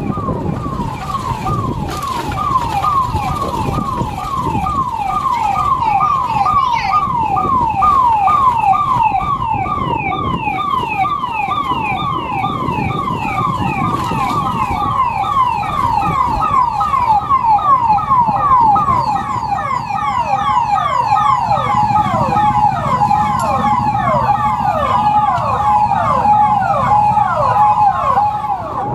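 Police vehicle sirens sounding a fast repeating yelp, each sweep falling in pitch, about two to three a second. A second siren with a steadier tone overlaps it in the last several seconds, over vehicle engine and street noise.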